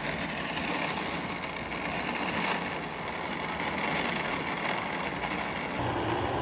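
Street-market background noise with a motor vehicle engine running, a low steady hum joining near the end.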